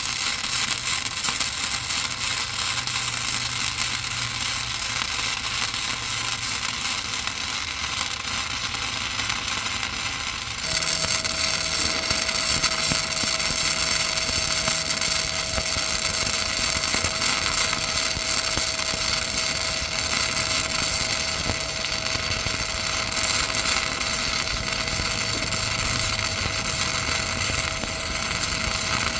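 Flux-core wire welding arc from a Miller Multimatic 200: a steady, dense crackling sizzle. About ten seconds in its sound shifts brighter and a faint steady tone joins it.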